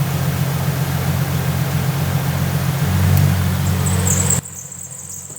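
Jeep XJ engine idling with several added electric cooling fans running at full speed, a loud steady whoosh over the engine hum. The noise swells slightly about three seconds in and then cuts off abruptly, leaving only a faint high, steady chirr.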